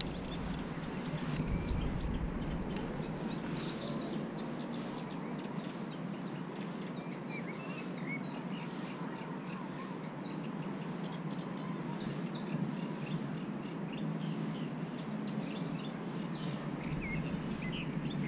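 Small birds chirping and trilling over a steady outdoor background hiss, with a brief quick trill about two-thirds of the way in. A low rumble, like wind on the microphone, near the start and again near the end.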